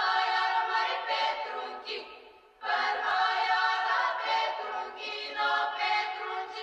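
Background music: an intro of sustained chords, breaking off briefly about two and a half seconds in.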